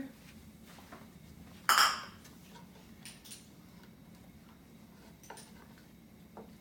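A utensil against a frying pan: one short, loud clatter about two seconds in, then a few light clinks.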